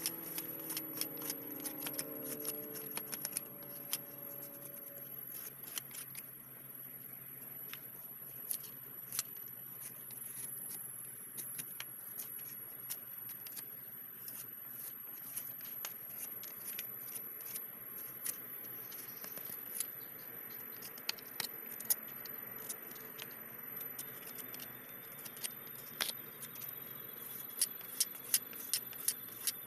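A knife whittling a fresh green branch: irregular sharp clicks and short scrapes as the blade shaves off bark and wood, with a quicker run of cuts near the end.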